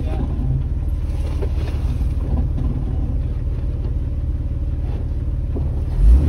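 Jeep four-wheel-drive engine working at low revs as it crawls up a steep, rutted dirt track, heard from inside the cabin. The engine noise rises sharply near the end as more throttle is given.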